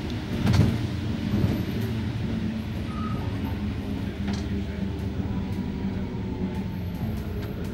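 Bus engine running with a steady low drone, heard from inside the bus as it moves, with a knock about half a second in and a smaller one about a second and a half in.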